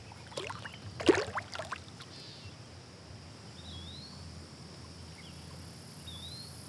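Water splashing as a smallmouth bass is let go from the hand and kicks away, in several quick splashes within the first two seconds, the loudest about a second in. After that, steady outdoor ambience with two short rising chirps.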